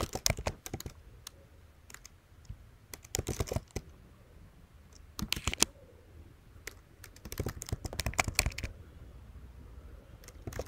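Typing on a computer keyboard: quick runs of keystroke clicks in several short bursts, with pauses between them.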